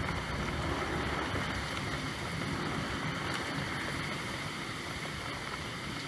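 Steady rainfall: an even, unbroken hiss of falling rain.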